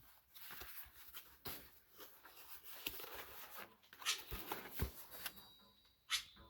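Faint, irregular rustling and handling of a packaged item, with scattered small clicks and a couple of soft knocks about four to five seconds in.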